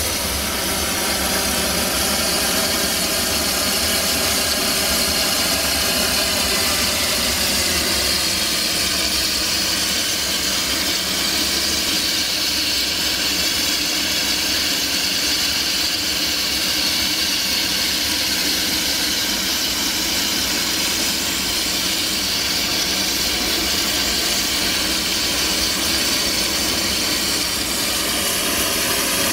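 Narrow-gauge steam locomotive 762.209 giving off a steady, loud hiss of steam over a low rumble, with no beat of exhaust chuffs.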